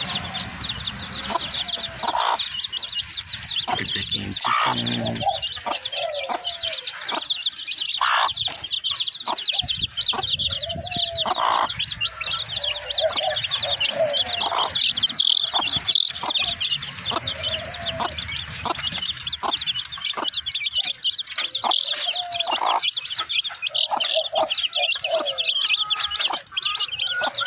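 Bird calls with short low clucking notes, repeated irregularly, over a dense, fast, high-pitched trill that never stops, with scattered sharp clicks.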